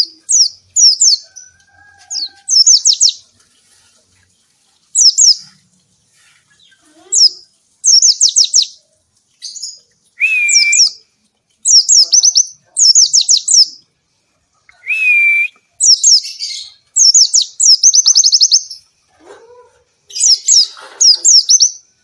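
White-eye (pleci) singing: short phrases of rapid, high-pitched descending notes repeated every second or so, with brief pauses between them and an occasional lower slurred whistle.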